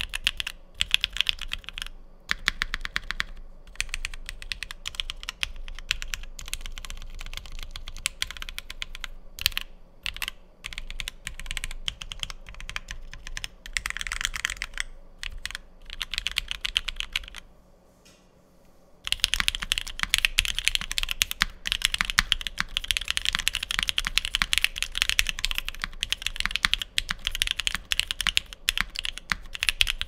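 Typemaster 180 mechanical keyboard with a polycarbonate plate, lubed and filmed Alpaca V2 linear switches and Durock V2 stabilizers, typed on steadily. Key presses follow in quick runs. There is a brief pause a little past halfway, and then faster two-handed typing resumes.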